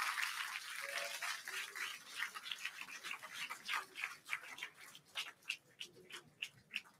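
Crowd applause and cheering fading away, thinning out into scattered individual claps and the odd faint voice.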